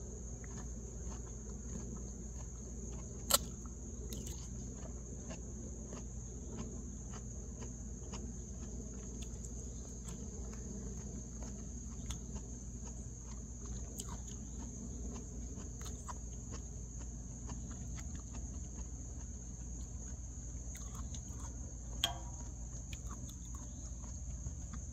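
Steady high-pitched chorus of insects singing. Faint scattered ticks of chewing and a spoon sound under it, with a sharp clink about three seconds in and another near the end.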